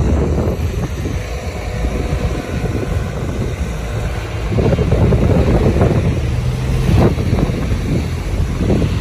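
Car driving, heard from inside the cabin: a steady low rumble of engine and road noise that swells about halfway through.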